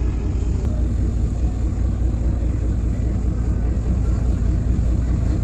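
Steady low rumble of a river car ferry's diesel engine running, even and unbroken.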